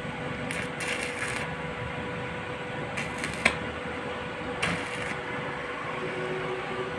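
Stick (arc) welder striking short arcs on a broken bolt stub to build weld up on it: three bursts of crackling hiss with a sharp snap in the middle one, over a steady hum.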